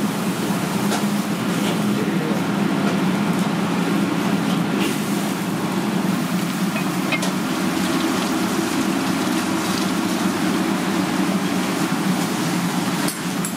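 Steady, loud mechanical rumble of a restaurant kitchen's machinery, with a few faint clicks from scissors and a cleaver working a ridged gourd on a wooden board.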